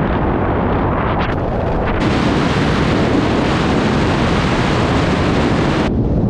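Loud wind rushing over the microphone of a camera out in the open airstream: first the duller rush around a parachutist descending under canopy, then, about two seconds in, a sudden harsher, hissier rush over a camera on the wing strut of a light high-wing plane gliding with its engine out, switching back to the duller rush near the end.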